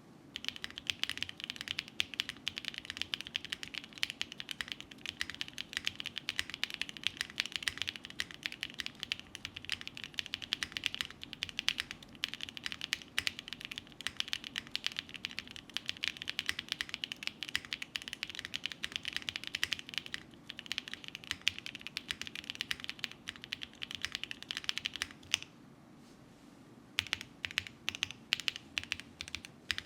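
TKD Pt 1/75 mechanical keyboard with Gateron Sage switches on a polycarbonate plate being typed on: a fast, continuous stream of key clacks. The typing stops for a moment near the end, then picks up again.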